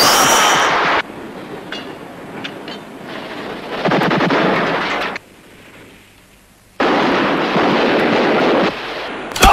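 Gunfire in a shootout: three long stretches of rapid fire, each about a second and a half, with a few faint single shots between them. One sharp, loud shot comes at the very end.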